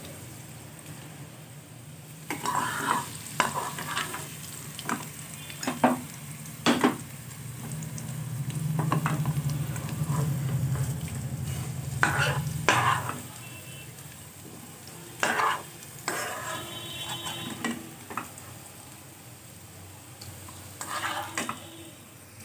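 Potato wedges sizzling in hot mustard oil in a nonstick pan, with a plastic spatula scraping and knocking against the pan again and again as the wedges are turned and lifted out. A steady low hum runs underneath.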